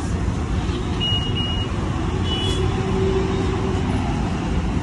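Steady rumble of street traffic, with a few faint short high tones about one and two and a half seconds in.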